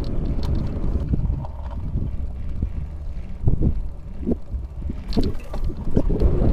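Wind buffeting the microphone and tyre rumble from a bicycle riding on an asphalt road, with a few short rattles. The rumble eases in the middle and picks up again about five seconds in.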